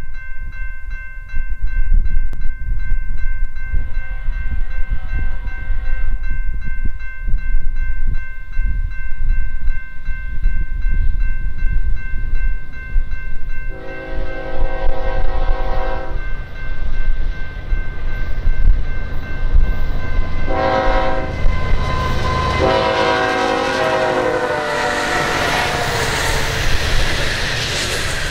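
BNSF GE ES44AC diesel locomotive leading a coal train approaches with a steady low engine rumble. It sounds its horn in the grade-crossing pattern: long, long, short, long, the first blast faint and the rest loud. Near the end the locomotives and cars pass close by in a rising rush of wheel and rail noise.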